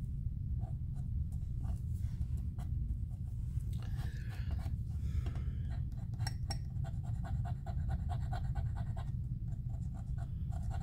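Paper pieces and small crafting tools being handled on a desk: light clicks and taps, a brief rustle about four seconds in and a quick run of ticks past the middle, over a steady low hum.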